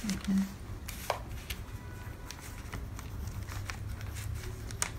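Pattern paper being handled on a table: soft rustling with a few scattered light taps and clicks as the paper is smoothed and folded flat.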